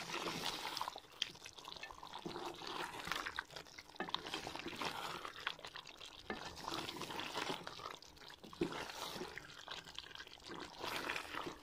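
Chicken karahi sizzling and bubbling in a metal pot as it is stirred with a wooden spatula, with irregular crackles and soft scrapes of the spatula against the pot. The dish is nearly done, its sauce cooked down.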